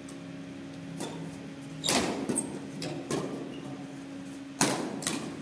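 Badminton rackets striking a shuttlecock during a doubles rally: a series of sharp hits roughly a second apart, echoing in the hall. The two loudest, likely smashes, come about two seconds in and near the end.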